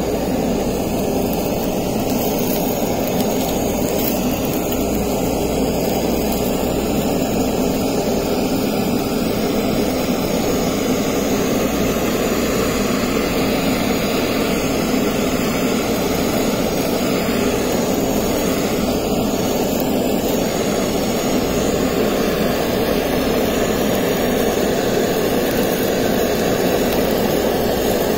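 Handheld gas torch burning with a steady, continuous hiss as its flame sears the skin of sea bream fillets.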